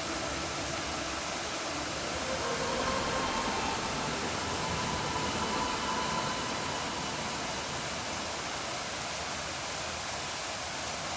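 Steady, even rushing noise with no rhythm or pitch, holding at one level throughout.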